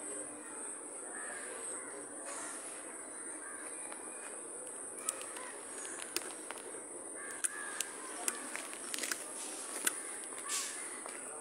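Birds calling over a steady, high-pitched insect drone, with scattered light clicks and taps from about five seconds in.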